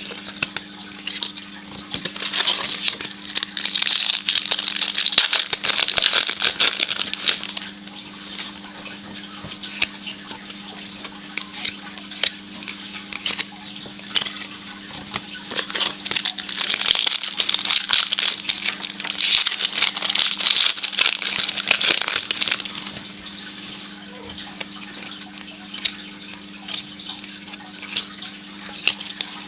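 Baseball card packs being opened and handled: wrappers crinkling and cards rustling in two long spells of dense crackling, with a steady low hum underneath.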